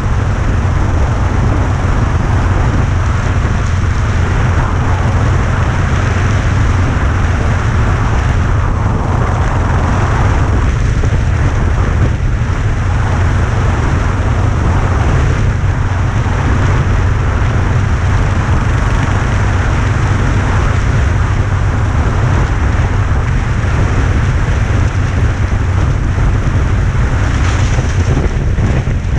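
Wind buffeting the microphone on a moving bike: a loud, steady low rumble under an even hiss.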